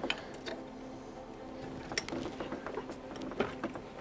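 A few separate metallic clicks and knocks of hand tools and parts being handled while a steering rack is fitted, over a steady faint hum.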